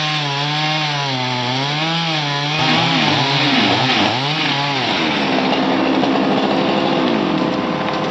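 Chainsaw cutting through the base of a poplar trunk, its engine note wavering up and down as it bogs and picks up in the cut. About five seconds in the note runs higher and steadier, then eases down slightly near the end.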